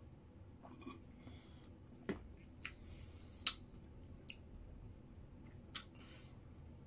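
Close-up mouth sounds of a person drinking from a small plastic bottle and swallowing: faint wet clicks and lip smacks, a handful of short sharp ticks, the loudest about halfway through.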